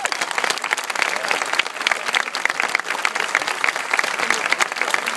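A large audience clapping steadily, many hands at once.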